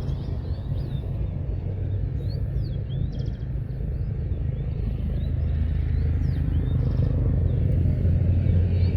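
Jet engines of a Boeing 737-800 rumbling low and growing steadily louder as the airliner approaches, with birds chirping repeatedly over it.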